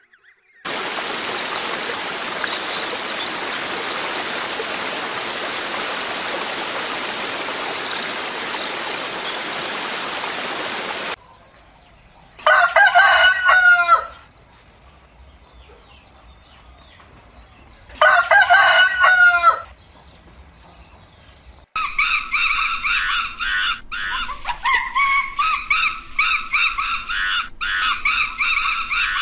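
A steady hiss of noise for about ten seconds, then a rooster crows twice, each crow about a second and a half long. Near the end a continuous run of rapid, high chattering calls begins.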